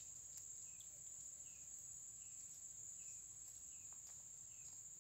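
Faint steady high-pitched insect drone, like crickets, with a short high chirp repeating about every three-quarters of a second.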